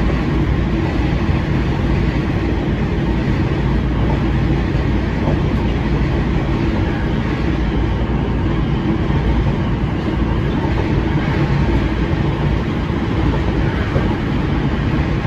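Hankyu 7000 series electric commuter train running at speed, heard from inside the front cab: a steady, even running noise of wheels on rail and running gear, with a faint low hum underneath.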